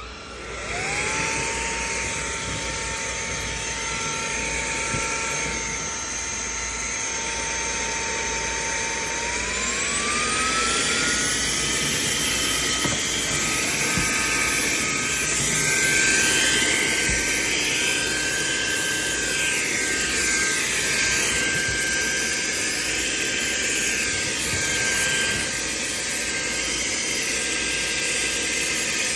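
Cordless stick vacuum cleaner switched on and running: a steady high motor whine that spins up right at the start and glides up to a higher pitch about ten seconds in, then holds, with the rush of suction air shifting as it works.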